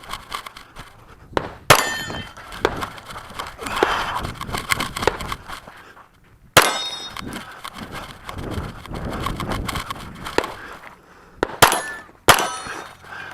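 Smith & Wesson M&P9L 9mm pistol firing a handful of spaced shots, two close together about a second and a half in, then single shots in the middle and near the end, with a metallic ringing after the shots. Between the shots there is rustling and shuffling.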